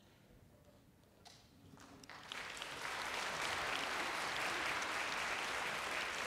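Concert audience applause: after about two seconds of near quiet at the end of an orchestral piece, clapping breaks out and quickly swells to a steady, full applause.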